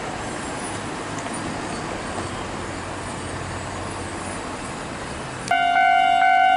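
Steady background road-traffic noise, then about five seconds in an abrupt cut to a railway level crossing warning bell ringing loudly in a rapid, even ding-ding of about two strikes a second. The bell signals that a train is approaching.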